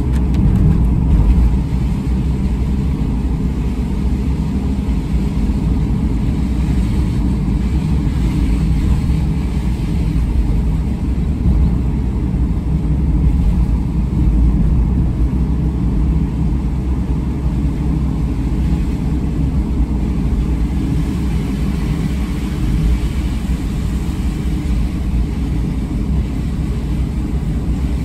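Steady low rumble of a car driving on a wet road in rain, engine and tyre noise heard from inside the cabin.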